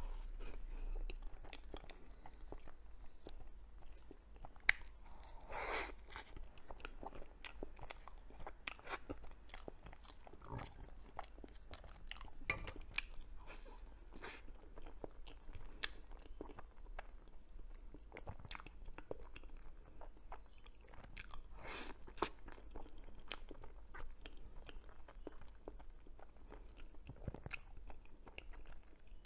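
A person biting into and chewing matcha mille crêpe cake, a steady run of small mouth clicks and smacks.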